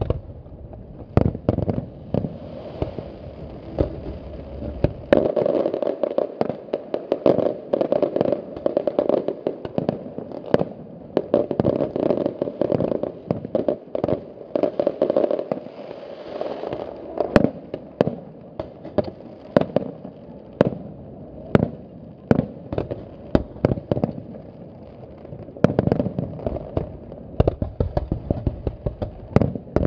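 Aerial fireworks shells bursting in a rapid barrage, one sharp bang after another. A dense crackling fills the gaps through the middle stretch.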